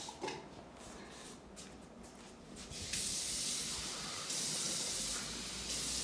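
A steady hiss that starts abruptly about three seconds in, its level shifting a little in steps.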